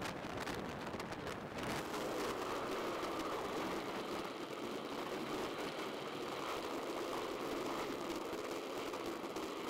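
Steady rushing ride noise from a bicycle moving along a wet road: wind on the microphone mixed with tyres on wet pavement.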